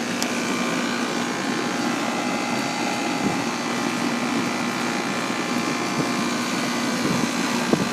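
2001 York central air conditioner's outdoor condenser unit running: the fan's steady whoosh with a constant low hum from the unit.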